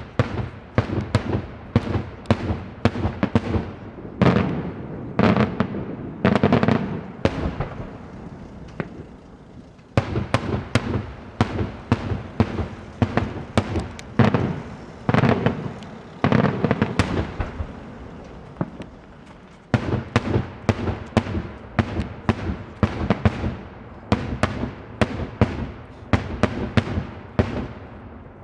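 Daytime fireworks display: rapid volleys of sharp aerial bangs, several a second, with echoing tails. There are two short lulls, about 8 and 19 seconds in.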